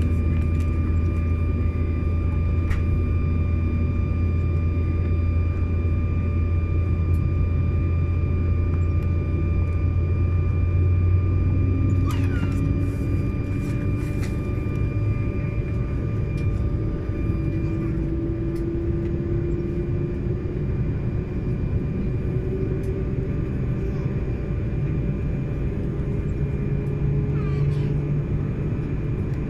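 Cabin noise inside an Embraer 190 taxiing, its twin GE CF34 turbofans running at low power: a steady rumble with several held whining tones. A deep hum drops out about a third of the way in, and a fainter tone slowly rises in pitch after that.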